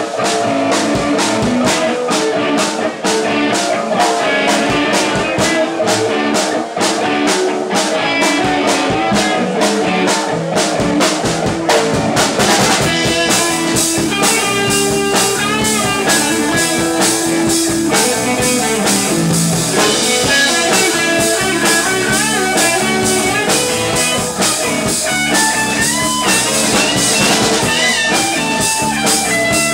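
Live rock band playing an instrumental stretch: electric guitars and a drum kit keeping a steady beat. About twelve seconds in, a lead electric guitar line with bent, sliding notes comes in over the band.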